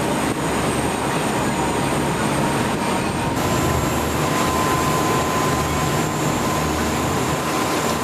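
A passenger ferry running at speed: a steady engine drone under the rush of its spray and the wind, with a slight change in tone about three seconds in.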